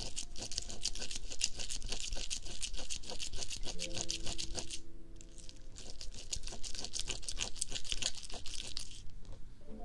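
Fingertips rubbing and kneading a soft, sticky material wrapped over a binaural microphone's ears, giving a dense, fast, crackly scratching right at the mic. It pauses briefly about five seconds in and stops about a second before the end. Faint background music plays underneath.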